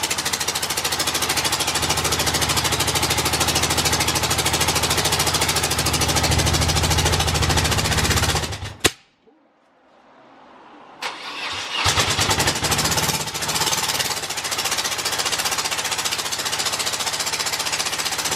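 BMW R100RS air-cooled flat-twin engine running on one cylinder, its other carburettor missing, with an uneven, pulsing idle. About nine seconds in it cuts out suddenly; a couple of seconds later the electric starter cranks it and it catches and runs unevenly again.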